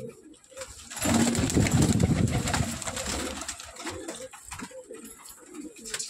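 Domestic pigeons cooing in a loft, with a loud burst of wing flapping and scuffling about a second in that lasts about two seconds as a pigeon is caught by hand.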